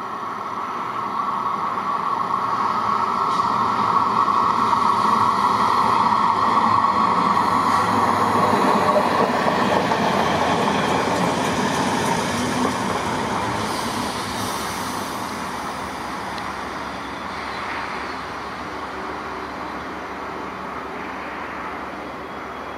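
Train running through the station, its sound building over the first few seconds and easing off through the second half, with a steady whine in the louder part.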